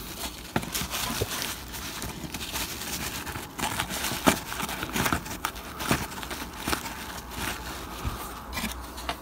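Kitchen roll rustling and crinkling in the hands as it is dabbed and pressed against a small painted model chimney, with scattered light clicks and taps from handling the model.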